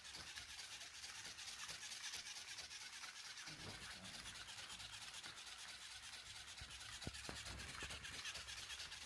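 Toy parrot's wings flapping, a soft, fast scratchy rustle. There is a faint tap about seven seconds in.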